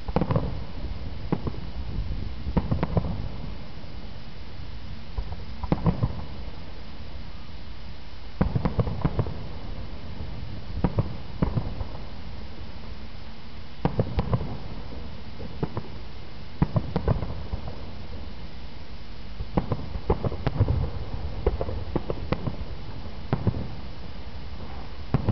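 Distant aerial firework shells bursting, a string of sharp booms every one to three seconds, each trailed by a low rumble, over a steady background hiss.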